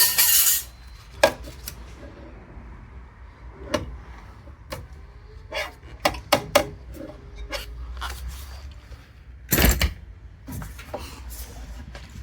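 Scattered clicks and knocks of tools and sheet-metal parts being handled while a hot water heater is taken apart, with a louder, noisier burst right at the start and another lasting about half a second near ten seconds in.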